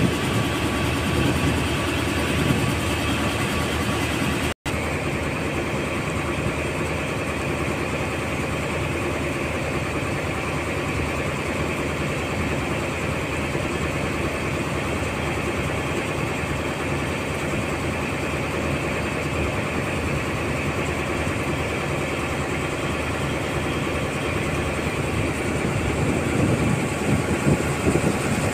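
Boat engine running steadily, a continuous low hum, with a brief instant where the sound cuts out about four and a half seconds in.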